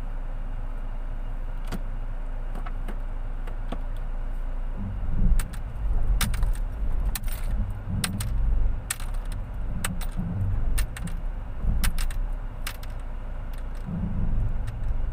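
Car engine idling steadily. From about five seconds in, irregular low thumps and a run of sharp clicks and jingles join it.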